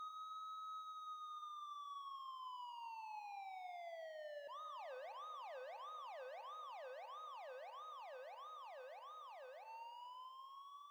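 Emergency-vehicle siren, faint: a slow wail rising and falling, which switches about four and a half seconds in to a fast yelp for about five seconds, then goes back to the wail near the end.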